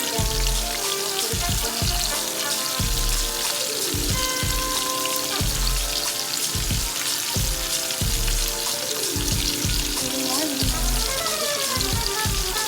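Pork chops frying in hot oil: a dense, steady sizzle, heard over background music with a steady beat.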